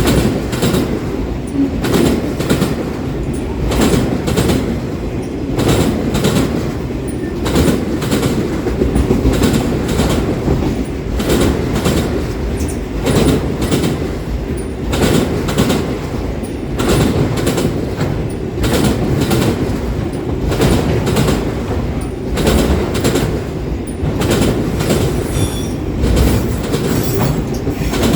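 Canadian Pacific train cars rolling past with a loud, steady rumble, their wheels clacking in a regular rhythm over the rail joints. A faint high wheel squeal comes in near the end.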